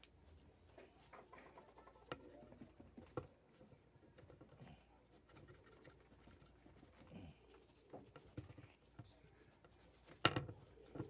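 Faint rubbing and scratching of a cloth wiping the thread wrap of a fishing rod's ring guide clean with alcohol, with scattered light taps and one louder knock near the end.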